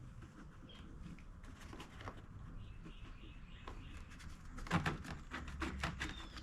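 Light clicks and knocks of hands handling the inverter generator's plastic housing and trim pieces, with a cluster of sharper clicks about five seconds in.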